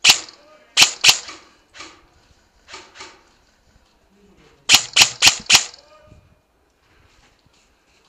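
Airsoft gunfire: sharp single cracks near the start and about a second in, softer ones at 2 and 3 seconds, then a quick string of four cracks about a quarter-second apart near the 5-second mark.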